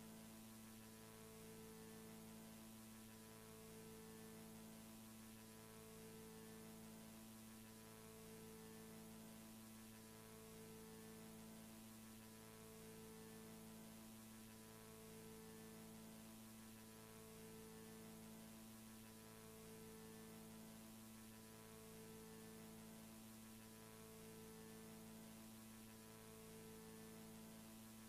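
Near silence: a faint steady electrical hum with hiss, and a faint low tone that pulses on and off about every two seconds.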